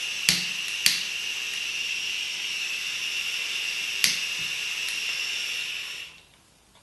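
Gas hissing from an old blowtorch's open nozzle, a steady hiss with a whistling tone, while a lighter is struck at it three times with sharp clicks; the torch has not caught. The hiss cuts off near the end as the valve is closed.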